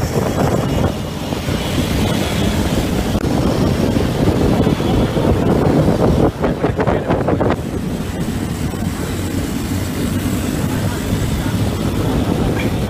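Steady low rumble of vehicle engines and road noise from moving along in night traffic, with wind buffeting the microphone. A brief run of rapid crackling about six to seven seconds in.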